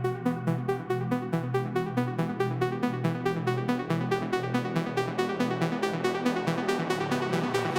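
Electronic background music with a fast, steady beat and synthesizer notes.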